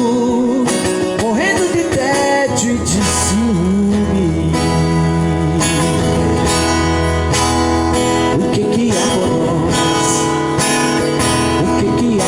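Live song with a singer's voice over a strummed acoustic guitar, picked up by a camera microphone. The voice holds long notes with vibrato while the guitar keeps a steady strummed rhythm.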